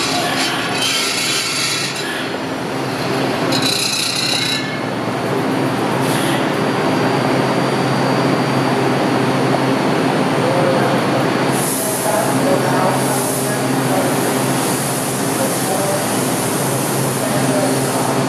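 Washington Metro Red Line train running through an underground station: a steady rumble of wheels on rail under a low motor hum. A brief high squeal comes about four seconds in, and a high hiss rises around twelve seconds in and carries on.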